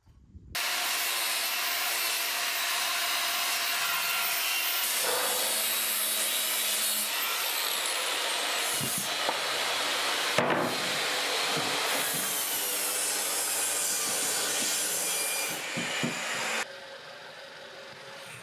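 Cordless jigsaw sawing through a wooden floorboard, running steadily and cutting off sharply near the end.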